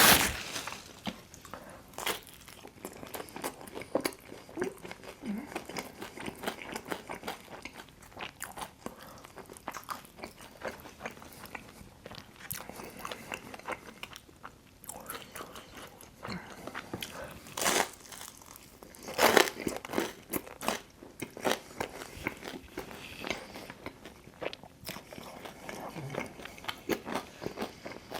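Close-miked biting and chewing of Detroit-style pizza: crisp crust crunching under the teeth in a string of short crackles, with a few louder bites along the way.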